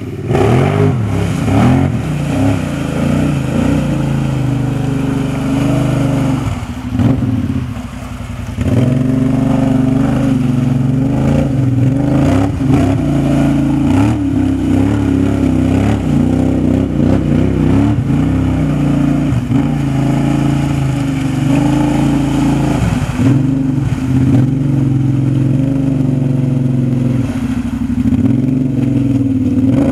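Kawasaki Brute Force 750 ATV's V-twin engine with a Muzzy exhaust, revving under load as its 30-inch Silverback mud tires churn through deep water and mud. The throttle eases off briefly about seven or eight seconds in, then comes back on.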